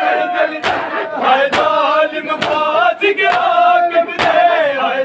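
Mourners doing matam: open-handed slaps on bare chests in unison, landing sharply about once a second, under a group of men chanting a noha refrain together.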